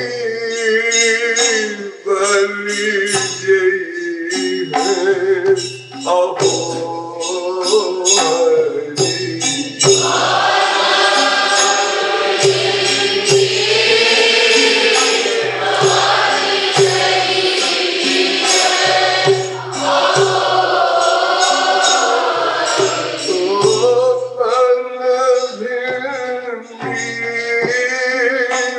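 Hindi devotional song (kirtan) sung call-and-response: a solo male voice leads, then about ten seconds in many voices take up the response for roughly fourteen seconds before the solo voice returns, over instrumental accompaniment.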